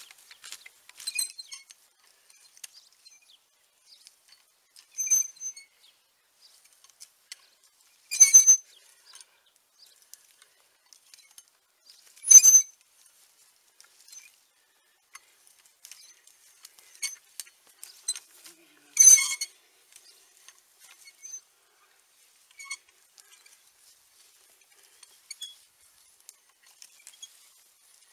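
Metal star-shaped tines of a long-handled WOLF-Garten star cultivator worked back and forth through garden soil, giving scattered scrapes and sharp metallic clinks. The loudest clinks come about 8, 12 and 19 seconds in.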